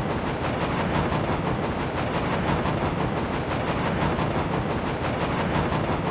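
Steam locomotive puffing sound effect: a rapid, steady run of chuffs with no let-up.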